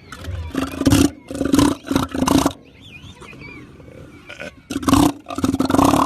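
Elephant seal burping: a run of short, loud, pulsing belches in the first two and a half seconds, then after a lull another loud belch about five seconds in that runs into a longer pulsing one near the end.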